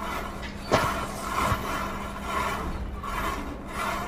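Chain of standing matchsticks burning, the match heads catching one after another with repeated hissing flares, and a sharp crack a little under a second in.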